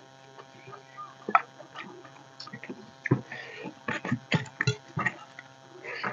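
Close-up eating sounds of rice and fish curry eaten by hand: wet mouth smacks and chewing clicks with fingers squishing rice on steel plates, sparse at first and coming thick and fast from about halfway, over a faint steady electrical hum.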